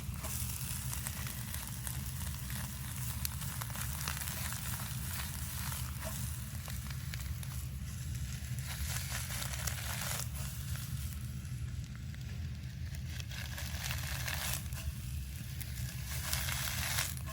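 Food frying in a pan over a wood campfire: steady sizzling that swells louder a few times, with fine crackles and pops from the burning wood, over a steady low hum.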